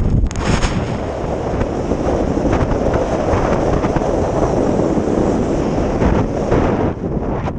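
Wind rushing over the action camera's microphone during a fast ski descent, mixed with skis hissing and scraping across hard, wind-packed snow.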